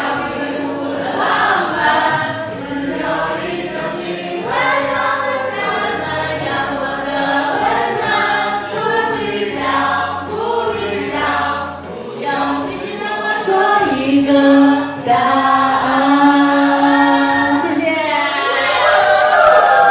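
Several voices singing together in chorus, with little or no instrumental backing.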